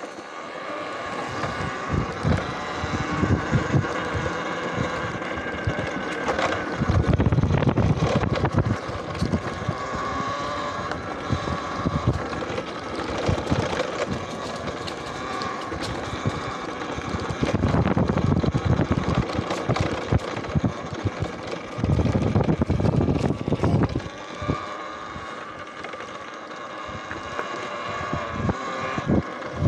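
Electric bike riding along a dirt trail: a steady, faint motor whine, with wind buffeting the microphone in several rumbling stretches of a few seconds each.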